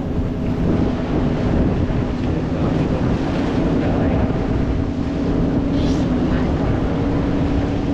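Fishing boat's engine running steadily under way, with wind buffeting the microphone and water rushing along the hull.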